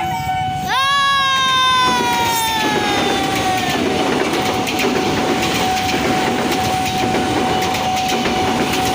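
A passing train sounds its horn about a second in, the horn's pitch sliding down as the train goes by. Steady wheel-on-rail running noise with repeated clicks over the rail joints follows. A steady high tone sounds throughout.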